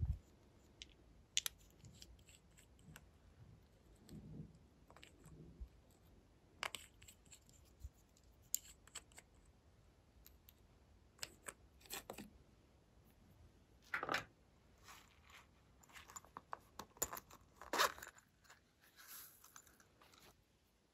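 Quiet handling noises of slime-making: small plastic glitter containers clicking and tapping, and snowflake sequins shaken out onto glossy slime, with a couple of louder taps in the second half.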